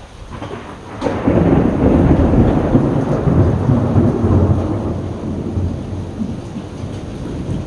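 A thunderclap over steady rain: it breaks suddenly about a second in, swells into a loud low rumble, then slowly fades back toward the rain.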